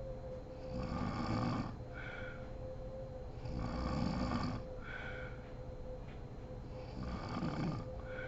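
A woman snoring in her sleep: three breaths about three seconds apart, each a longer, rough snore followed by a short, clearer one, with a steady low hum underneath.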